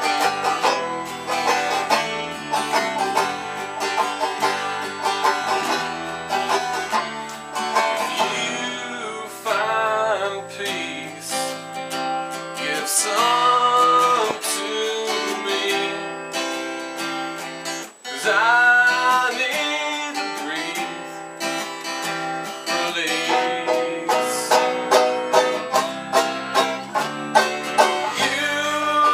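Bluegrass-style music with banjo and guitar picking, with some singing.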